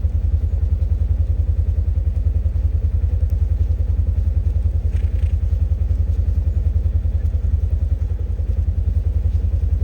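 A vehicle engine running steadily with an even, low throb.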